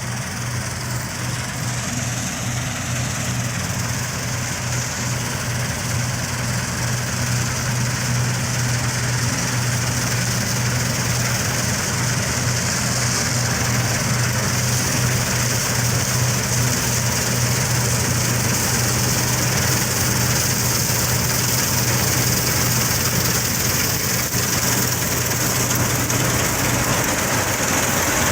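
New Holland 8070 combine harvester running steadily, its engine and machinery making a continuous low hum that grows gradually louder.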